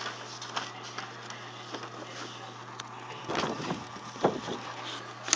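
IBM Selectric I electric typewriter switched on, its motor humming steadily, with scattered light clicks and two louder mechanical clatters about three and four seconds in.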